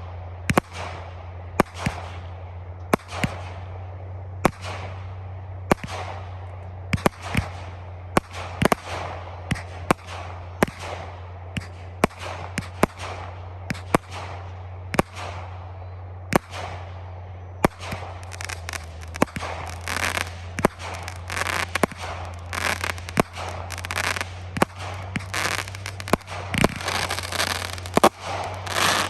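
Fireworks display: a steady string of sharp shell bursts, one or two a second, each trailed by crackling. In the last ten seconds the crackle thickens into a near-continuous crackle, with a loud burst near the end. A steady low hum runs underneath.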